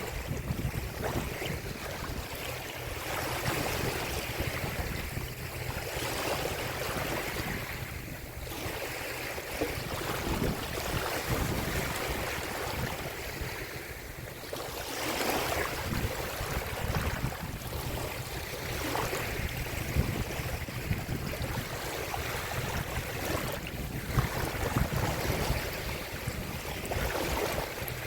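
Wind rushing and buffeting over the microphone, a rumbling noise that swells and eases, by open water.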